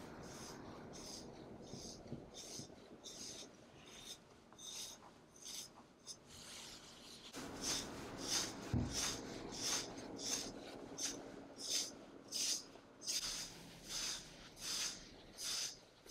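EQUIGROOMER de-shedding brush raking through a British Shorthair cat's dense coat, a soft rasping scratch with each stroke as loose undercoat comes out. The strokes come about every second at first, then quicker and a little louder from about halfway.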